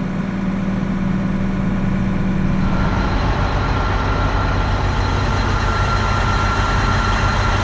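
Heavy vehicle's engine running steadily. About three seconds in, the sound shifts: a low hum drops away and a steady whine comes in.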